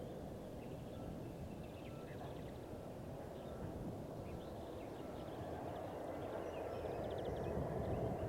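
Outdoor airfield ambience: a steady low rumble that slowly grows louder, with small birds chirping over it and a brief rapid trill about seven seconds in.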